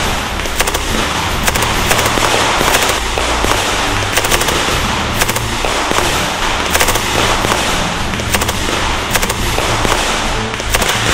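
Rifle fire from a squad in an assault, sharp shots cracking in irregular rapid bursts and single reports, many overlapping.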